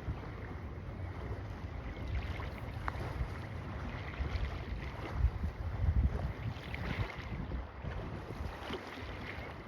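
Wind buffeting the microphone: a low, uneven rumble that swells in gusts, strongest about five to seven seconds in.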